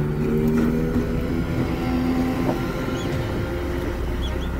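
Outboard motor of a small open river boat running steadily at speed.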